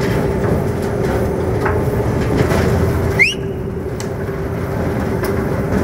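Hydraulic timber loader crane and its machinery running with a steady hum over a low rumble. A short rising whistle sounds a little over three seconds in.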